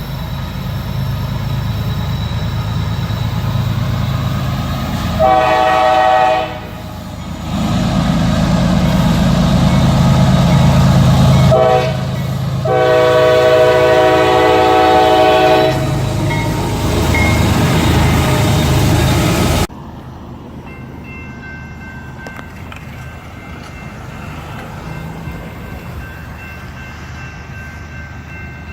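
Diesel locomotive horn at a grade crossing, sounding a shorter blast and then a long one over the low rumble of the passing train. About two-thirds of the way through the sound cuts off abruptly to a much quieter background with faint steady tones.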